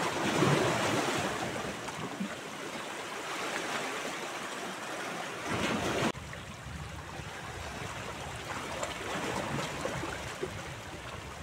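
Small sea waves lapping and washing against shoreline rocks, an even rushing wash. The sound changes abruptly about six seconds in.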